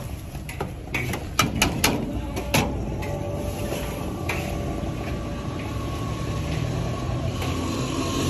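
Metal spoon clacking against a steel bowl as ful beans and onion are mashed and mixed, a quick run of sharp clacks in the first three seconds and a few more later, over a steady background hum.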